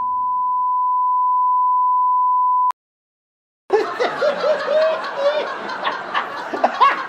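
A steady, high-pitched electronic test tone swells in loudness and cuts off abruptly with a click about two and a half seconds in. After a second of silence, many overlapping voices break into laughter and snickering.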